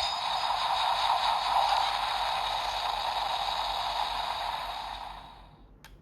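Electronic sound effect from a toy transformation device's small speaker playing the Ultraman Max key: a steady hissing rush that fades out about five seconds in, followed by a sharp click near the end.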